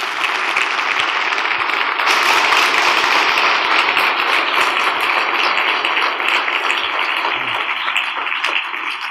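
A large audience applauding, growing louder about two seconds in and beginning to die down near the end.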